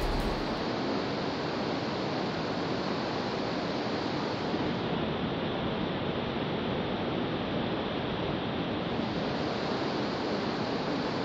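Steady rushing noise of wind and sea aboard a warship, even throughout, with no tones or knocks.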